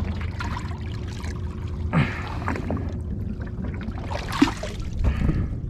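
White plastic bucket dipped into seawater over a boat's side, water sloshing and pouring in and out of it in a few splashes, over a steady low hum.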